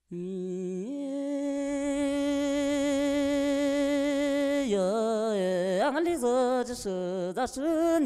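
Solo voice singing a long held note that steps up in pitch about a second in, with a slight vibrato, then turning to wavering, ornamented phrases with short breaks in the second half.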